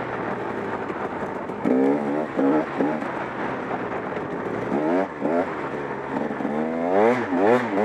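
KTM 300 XC-W's single-cylinder two-stroke engine running under a rider on a dirt trail, revving up and back in short throttle bursts about two seconds in and again around five seconds, with a longer, louder rise and fall near the end.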